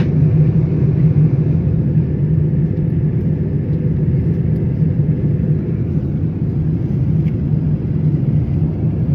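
Steady low rumble of an airliner cabin in cruise: jet engine and airflow noise heard from a window seat.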